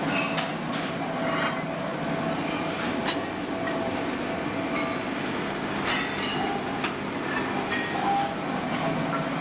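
Workshop machinery running steadily, with a few sharp metallic clanks scattered through it.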